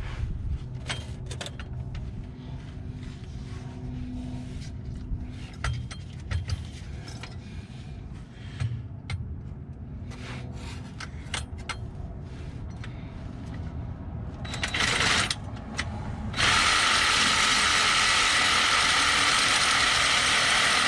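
Hand ratchet clicking in irregular runs, with knocks of metal tools. About sixteen seconds in, a loud, steady hiss starts and lasts about five seconds.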